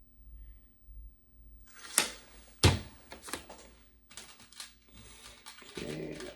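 Small tools and hardware handled on a workbench: irregular clicking and rattling, with two sharp knocks about two and three seconds in and a denser, lower clatter near the end.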